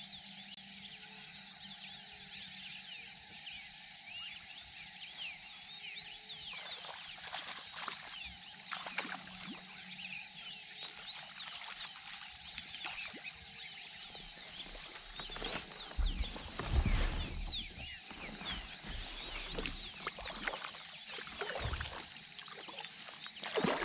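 Dense dawn chorus of many birds chirping. From about two-thirds of the way in, low thumps and splashing as a hooked traíra thrashes at the surface beside the kayak.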